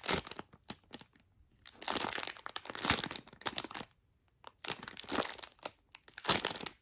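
Plastic packaging bag crinkling in several irregular bursts as a packaged squishy toy is handled, with a longer stretch of rustling about two to four seconds in.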